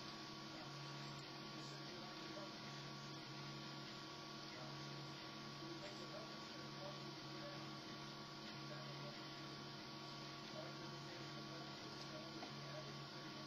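Home-built Prusa Mendel 3D printer running a print: a faint steady hum, with a low tone that breaks off and resumes about once a second as the print head moves.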